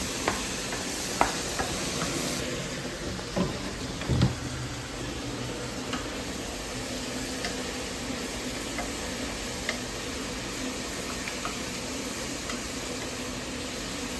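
Onions sizzling in a pot as they are stirred, with a steady frying hiss and a spoon clicking and knocking against the pot now and then, most loudly about four seconds in.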